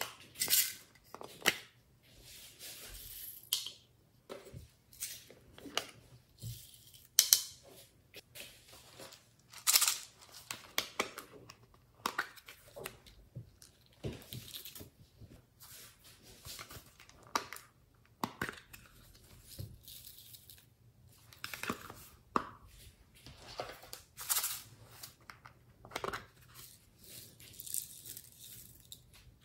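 Glitter and sequins being shaken and tapped out of small plastic containers onto a tray of slime: irregular plastic clicks and taps with short rustling hisses, the loudest taps about 7 and 10 seconds in.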